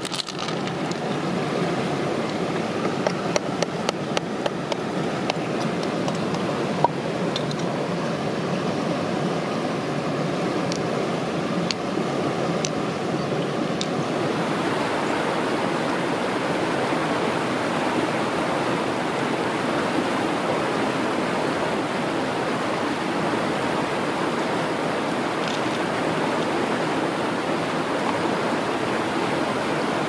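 Steady rush of flowing river water. A few light clicks come about three to five seconds in, and one sharper click just before seven seconds.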